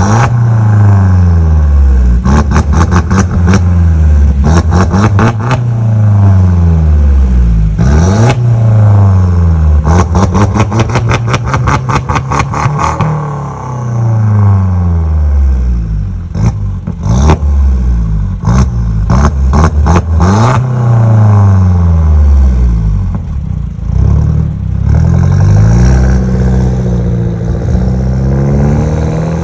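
Mercedes E200's turbocharged four-cylinder revved repeatedly through a tuned exhaust with a downpipe, no resonator and reworked stock mufflers: about ten quick blips that rise and fall, several followed by rapid crackling pops as the revs drop. In the last third the revs are gentler as the car pulls away.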